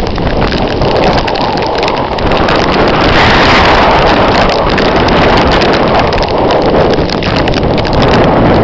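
Hurricane-force wind gusting and buffeting the microphone, a loud, continuous rush with rapid flutter that swells strongest about three seconds in.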